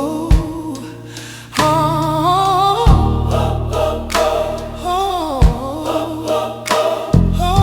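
Gospel music: voices singing with a wavering vibrato over held bass notes, with a low beat about every two and a half seconds.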